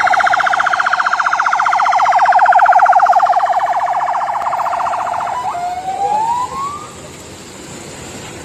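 Electronic vehicle siren sounding a fast warble that sags slightly in pitch and fades, then switches about five seconds in to one rising whoop that stops near seven seconds.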